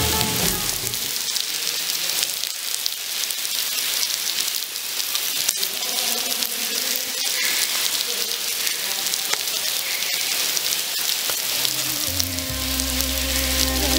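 Heavy rain falling and splashing into puddles: a steady hiss with scattered sharp drip ticks. Music with low notes comes in near the end.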